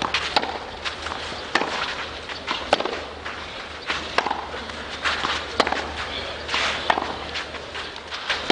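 Tennis rally on a clay court: sharp pops of racquets hitting the ball back and forth, with ball bounces and the players' shoes scuffing on the clay, over a low hum of the crowd.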